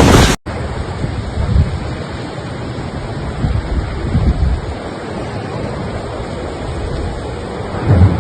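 Storm wind buffeting a phone microphone: a steady rushing noise with uneven low gusts. It begins after an abrupt cut about half a second in.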